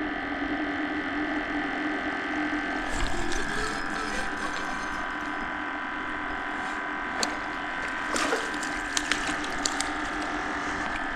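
Spinning fishing reel being cranked, its gears whirring and ratcheting, over a steady hum, with a few sharp clicks in the second half as the small crappie is reeled in.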